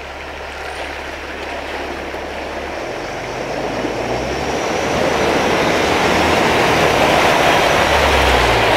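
Jeep four-wheel drive wading slowly through a muddy, water-filled hole: the engine runs low under a rush of splashing water that grows louder as the vehicle pushes through and nears.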